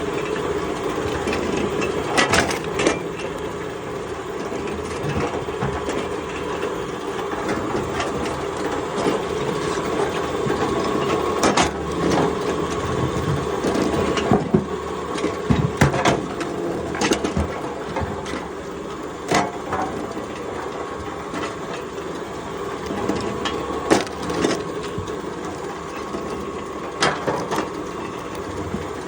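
Wood being worked: irregular sharp knocks and cracks over a steady machine-like hum.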